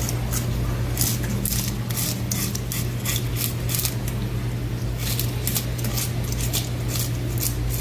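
A knife working on a raw fish on a cutting board, making quick, irregular high scraping strokes several times a second, with a pause about halfway. A steady low hum runs underneath.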